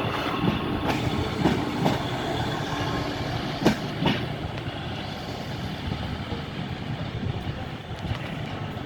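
Four-coach diesel multiple unit, a class 156 coupled to a class 150, rumbling steadily along the platform, with a few sharp wheel clacks over the rail joints in the first half.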